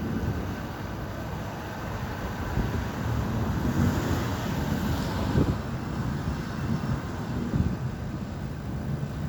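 Thunderstorm: a continuous low rumble with wind buffeting the microphone, swelling into a brighter hiss about four to five seconds in.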